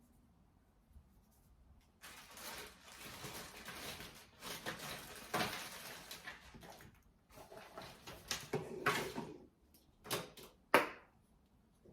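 Rustling and handling of small packets and blood-glucose testing supplies, followed by a few sharp clicks near the end.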